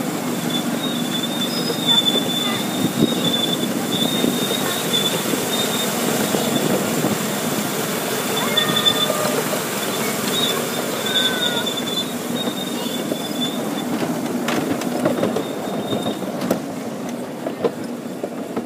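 Miniature railway train running over its track: a steady rumble of wheels on rail, with the wheels squealing on and off as the train takes the curves. Near the end the rumble fades and a few sharp clicks come through.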